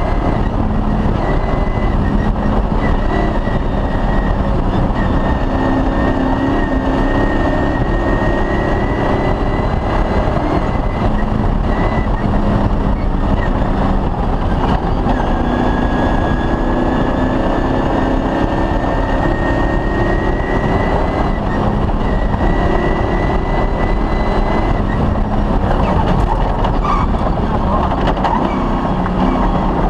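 Cross-country rally car driven hard: its engine runs loud and continuous, its pitch rising and falling with the throttle, over a steady high whine.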